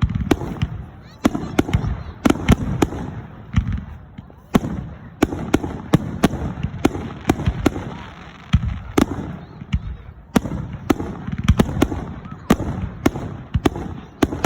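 Fireworks display: aerial shells bursting in quick, irregular succession, a steady run of sharp bangs and cracks, each trailed by a low rumble.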